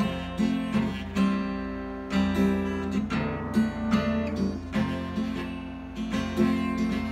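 Acoustic guitar played solo: chords ringing, with a new note or strum every half second or so as the fretting hand changes shapes.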